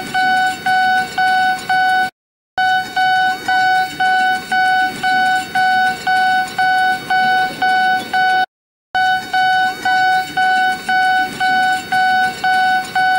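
Electronic warning bell of a pedestrian railroad crossing signal sounding: a steady high tone pulsing about twice a second. It cuts out briefly twice, a little after two seconds in and again past eight seconds.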